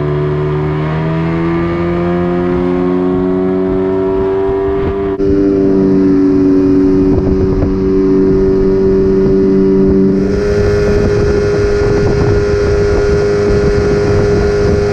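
A small boat's outboard motor revs up and then runs steadily at speed, with wind and water noise. The sound changes abruptly twice, about 5 and 10 seconds in.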